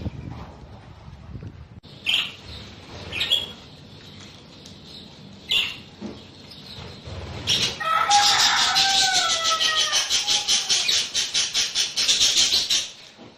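Budgerigars in an aviary: a few short chirps, then about five seconds of loud, fast, even pulsing, like wings fluttering, with warbling glides over it. It stops abruptly near the end.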